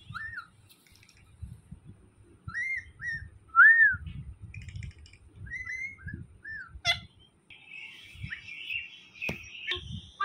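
Rose-ringed (Indian ringneck) parakeet giving a string of short whistled chirps, each a brief note that rises and falls, the loudest a little under four seconds in. Soft low bumps sound in between.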